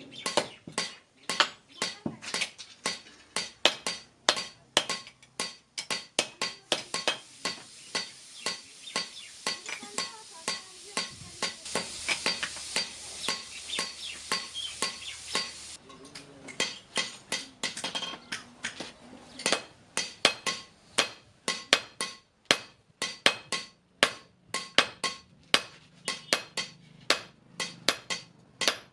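Blacksmith's hammer striking metal on an anvil in a steady rhythm of about three to four ringing strikes a second while forging a spade blade. A steady hiss sits behind the strikes from about eight seconds in and cuts off suddenly near the middle.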